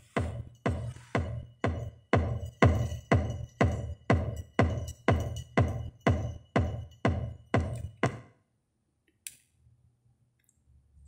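Electronic dance music with a steady pounding drum-machine beat, about two and a half beats a second, played from a phone over Bluetooth through a Pioneer MVH-98UB car stereo. The music stops about eight seconds in, leaving near silence with one faint click.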